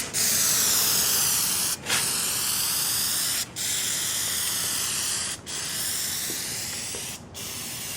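Aerosol can of Plasti Dip rubber coating spraying: a steady hiss in about five passes, each broken off by a brief pause roughly every two seconds.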